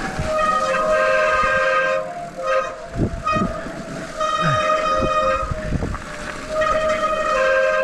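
A train's whistle blowing a series of blasts, each a chord of several steady tones: three long ones, with two short toots between the first and the second. Low thumps can be heard underneath.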